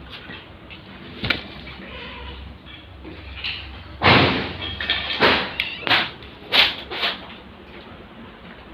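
Heavy impacts from a house being demolished: a knock about a second in, then a loud impact about four seconds in followed by several more in quick succession.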